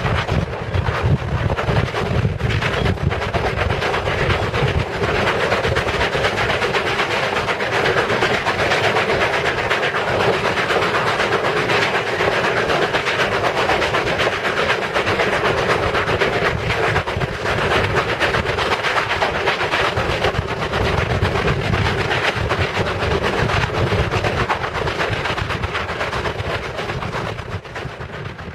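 Grand Canyon Railway's 2-8-2 steam locomotive 4960 heard from the car right behind it: the engine's exhaust chuffing under the running clatter of the wheels on the rails. It fades out near the end.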